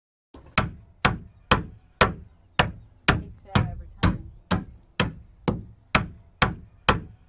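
Hammer blows in a steady rhythm, about two a second, starting abruptly just after the opening.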